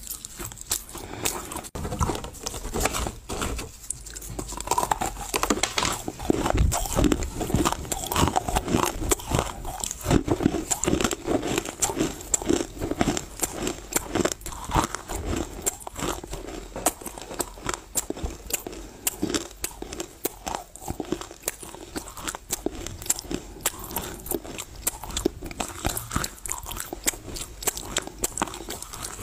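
Close-miked chewing of Chinese loess clay mixed with a paste: continuous wet crunching and crackling as the clay is bitten and chewed.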